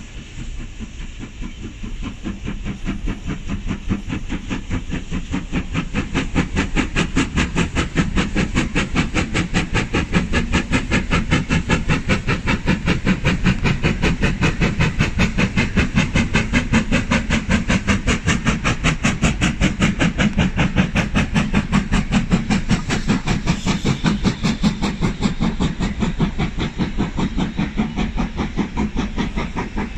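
Steam locomotive hauling a passenger train, its exhaust chuffing in a rapid, even beat with a steady hiss. The beat grows louder over the first several seconds as the train approaches, then holds steady as it passes close by.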